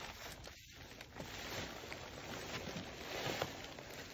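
A large plastic sack of food rustling and scraping faintly as it is hauled up and shifted in the arms, over a steady background hiss.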